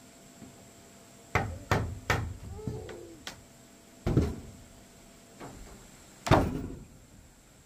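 Irregular knocks and thuds of wood on wood, about eight in all at uneven spacing, the loudest a little over six seconds in, as wooden floorboards are worked into place.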